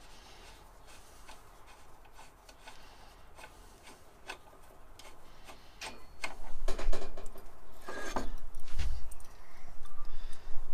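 Faint small metal clicks as a nut is run along the lathe cross-slide feed screw. About six seconds in, this gives way to louder scraping, clinking and knocking of the metal parts being handled, with a couple of dull thumps near the end.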